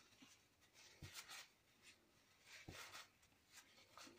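Near silence, with a few faint rubs and light taps of fingers pressing a glued paper piece down onto a chipboard album page.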